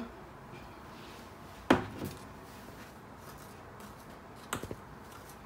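A metal teaspoon clinking against a glass mixing bowl as baking soda is tipped in: one sharp clink about two seconds in and a softer clink near the end, over faint room tone.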